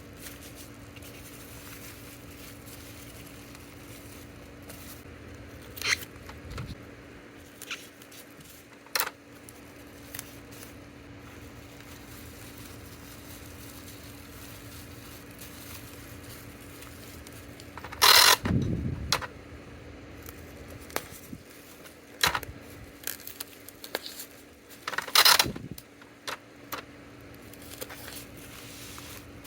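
Hands packing small orders: plastic packaging and parcel materials handled with scattered sharp clicks and crinkles, and two louder scraping bursts near the middle and toward the end. A steady low hum runs underneath.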